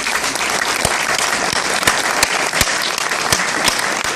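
Audience applauding steadily, a dense wash of many hands clapping with a few loud nearby claps standing out.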